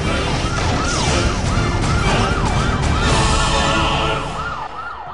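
Emergency siren wailing in quick rise-and-fall sweeps about twice a second over a dense rumbling noise, the whole fading out near the end.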